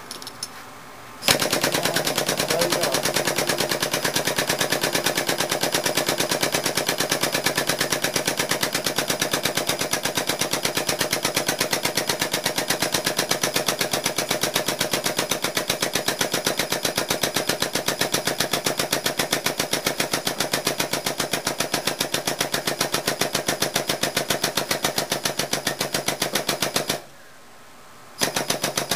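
Air-over-hydraulic pump of a homemade broach press pumping with a rapid, even pulse, driving the ram down to push a keyway broach through a bead roller die blank. It starts about a second in, stops for about a second near the end, then starts again.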